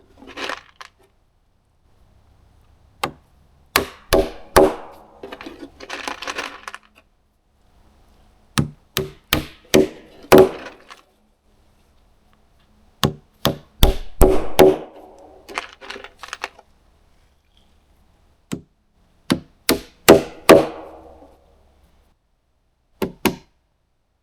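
Hammer blows on wood, coming in clusters of three to five sharp strikes a few seconds apart, each followed by a brief ringing.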